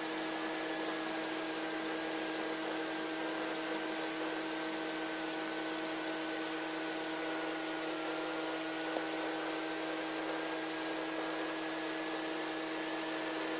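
Steady hiss with a low hum and a faint whine that dips slightly in pitch midway and comes back up: the helicopter's clutch actuator tensioning the drive belts, before the rotor turns.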